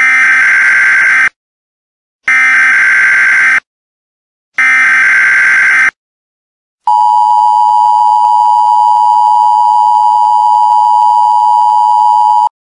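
Emergency Alert System SAME header: three bursts of digital data tones, each about 1.3 s long with about a second of silence between, then the long steady EAS attention tone for about five and a half seconds.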